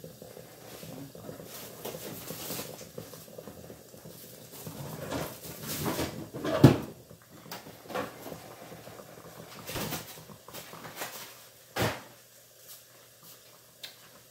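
Kitchen clatter: scattered knocks and clunks of cupboard doors and cookware, the loudest about halfway through, over a faint steady hiss from chicken frying in a covered pan.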